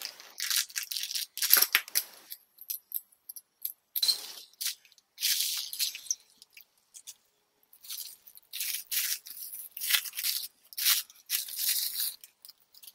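Clear plastic bag and bubble-wrap packaging crinkling and rustling in irregular bursts as it is pulled off a camera lens.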